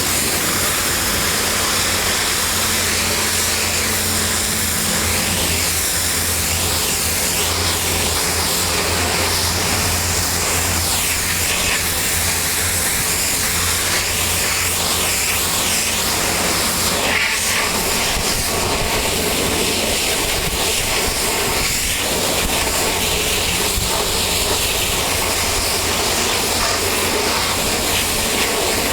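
Pressure washer spraying steadily, a continuous hiss of water jet with the machine's motor humming underneath.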